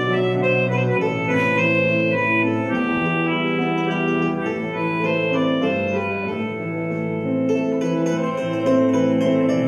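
Small folk band playing live: slow, sustained organ-like chords with bowed cello, mandolin and concertina.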